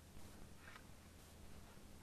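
Near silence with a faint steady low hum and two soft faint noises in the first second.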